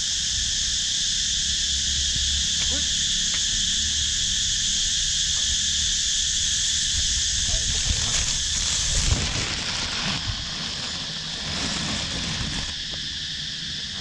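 Chorus of cicadas in the trees, a loud, steady, shrill drone. From about eight seconds in there is rustling and knocking from the plastic-bag net being handled.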